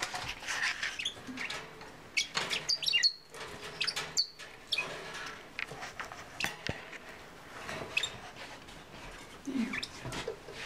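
Bourke's parakeets chirping and twittering in short scattered calls, mixed with quick clicks and scratches.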